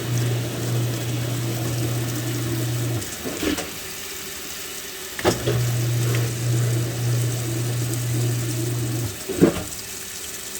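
Kenmore washing machine, its lid switch bypassed, now working and taking in water, with running water throughout. A steady low electrical hum cuts off with a click about three seconds in, starts again with a click about five seconds in, and stops near the end.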